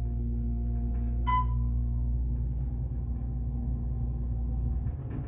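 Otis inground hydraulic elevator running upward: a steady low hum from the car's travel and pump, with a single short electronic ding about a second in. The hum changes and drops away near the end as the car slows and levels at the upper floor.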